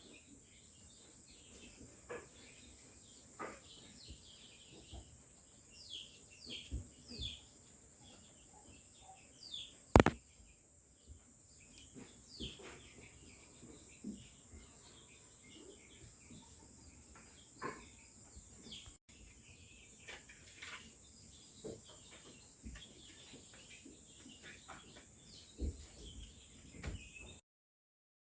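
Small birds chirping, many short falling calls scattered throughout over a steady high-pitched hiss, with one sharp click about ten seconds in.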